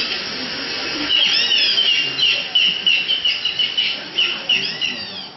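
Audience applauding in a hall, with a quick run of short, high-pitched squealing calls over it.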